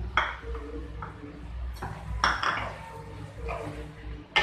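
A steel spoon tapping and scraping spice paste off a bowl into an aluminium kadai, then a spatula stirring the diced vegetables in the pan, giving about half a dozen sharp clinks and knocks.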